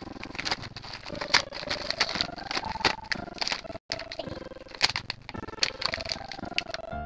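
Plastic blister packaging and cardboard backing of a toy furniture playset crinkling and clicking as it is handled, with many sharp clicks. The sound cuts out briefly a little past halfway.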